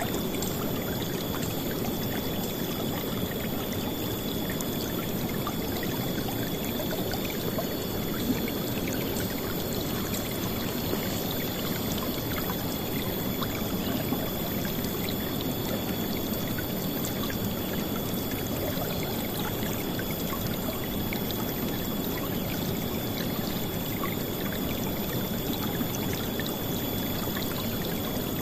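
River water rushing and splashing in a steady, dense flow, with no pauses or changes in level.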